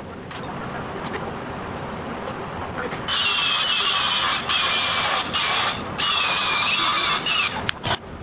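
Angle grinder with a cut-off wheel cutting steel on a truck frame: a loud, high, wavering whine that starts about three seconds in. It dips briefly a few times as the wheel bites and stops shortly before the end, followed by a couple of sharp clicks.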